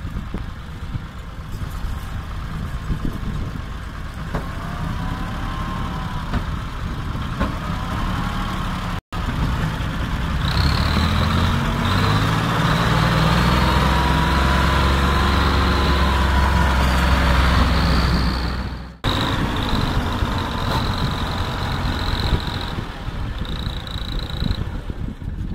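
Ford 4600 tractor's three-cylinder engine working hard under a very heavy trolley load. The engine's pitch rises and falls, and it grows louder in the middle. The sound breaks off abruptly twice.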